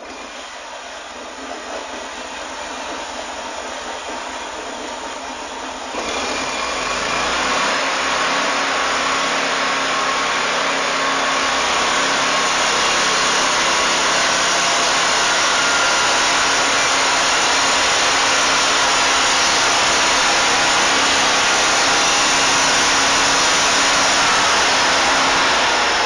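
Homemade band sawmill running: its engine and spinning band blade make a steady whirring drone, which jumps suddenly louder about six seconds in and stays there.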